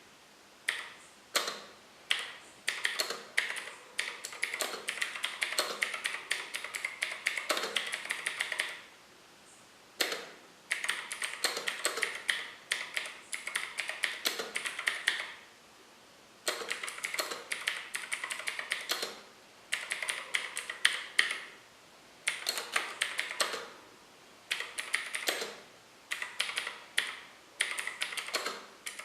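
Typing on a TVS Gold mechanical keyboard fitted with Gateron blue clicky switches. Quick runs of sharp key clicks come in bursts of a few seconds, broken by short pauses, with longer gaps about nine and about sixteen seconds in.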